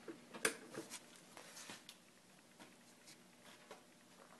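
Faint scattered clicks and scratches of fingers handling thin copper wire leads at the base of a homemade magnet motor, with one sharper click about half a second in.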